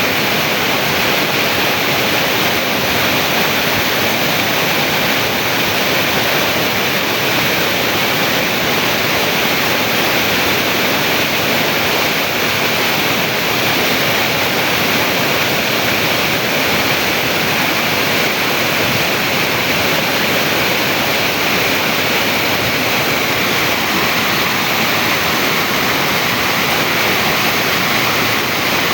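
Stream water rushing and splashing over rock, a steady, unbroken rush.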